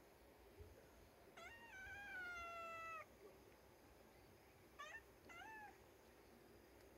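Domestic cat meowing: one long meow that falls slightly in pitch, then two short meows about two seconds later.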